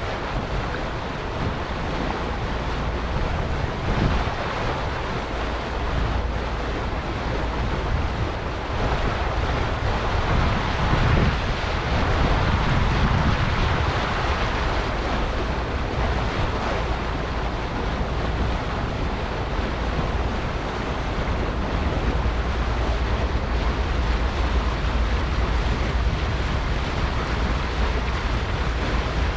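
Wind buffeting the microphone aboard a moving hire cruiser, over a steady rush of water and a low rumble, swelling briefly about halfway through.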